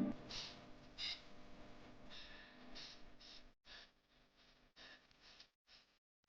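Faint background music fading out: airy, breathy strokes in a loose rhythm, growing softer and broken by short gaps before cutting off.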